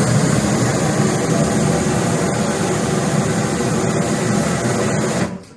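Red HIT insecticide aerosol spray burning as a jet of flame: a loud, steady rushing of the ignited spray, which cuts off suddenly near the end. The flame comes from the can's contents, which the speaker says are kerosene pressurised with LPG.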